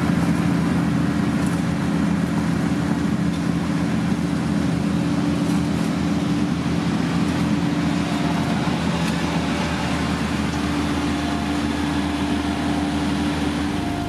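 Heavy diesel engine of road-construction machinery running steadily under load, with a steady low hum over a broad rumble.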